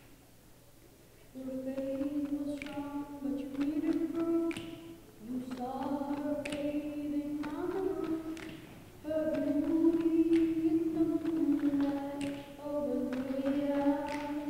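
A group of children singing a cappella into microphones in long held notes that step from pitch to pitch, starting about a second and a half in. Short sharp clicks fall between the notes.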